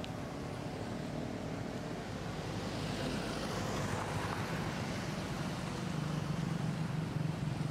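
Road traffic noise: a vehicle passing with a swell about three to four seconds in, then a low engine hum growing louder near the end.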